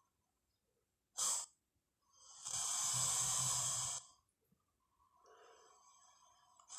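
Creature sound effect for a Spinosaurus: a short sharp snort about a second in, then a loud hissing exhale lasting about two seconds with a low rumble beneath it, and fainter pitched calls near the end.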